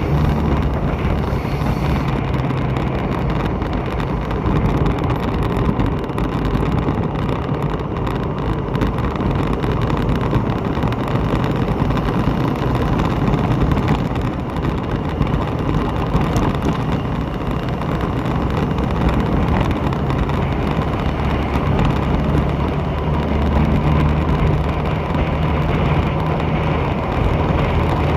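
The engine of a moving vehicle running steadily under wind and road noise. The engine hum grows stronger for a few seconds near the end.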